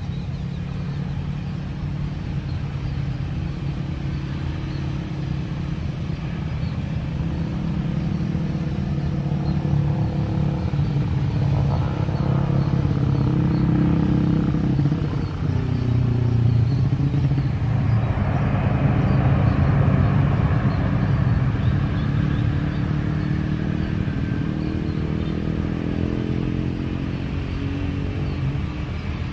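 Airbus A320-family jet airliner landing: a steady low engine rumble that grows louder as it touches down and rolls out along the runway, swelling into a broader roar about two-thirds through. A motorcycle engine passes close near the end.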